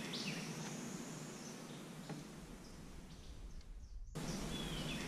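Outdoor woodland ambience: a steady hiss with birds calling, one call sweeping up in pitch just after the start. The sound fades down, then cuts back in abruptly about four seconds in.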